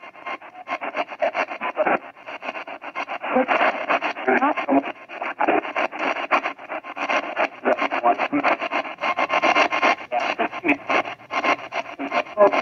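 AM/FM radio used as a spirit box, sweeping rapidly through the band: a fast, choppy stream of static and split-second scraps of broadcast sound, chopped many times a second. The operator hears answers in it, captioned as "he's responsible" and a name.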